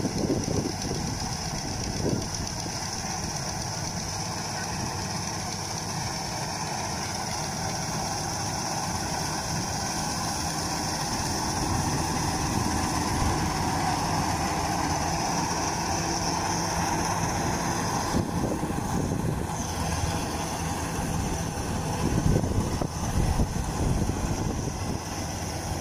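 Kubota DC-93 rice combine harvester running under load as it cuts and threshes rice: a steady diesel engine drone mixed with the rush of its cutting and threshing machinery, growing louder about halfway through as it comes closer.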